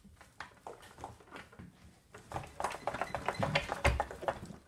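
Hands gripping and twisting the plastic emptor elbow on a 1988 Kirby Heritage II vacuum's metal fan case: scattered light clicks, then from about halfway a quick run of plastic clicks and knocks, with one heavier thump near the end.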